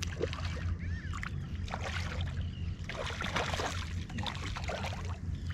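Water splashing and sloshing against a small inflatable boat in short bursts, busiest about three seconds in, over a steady low hum.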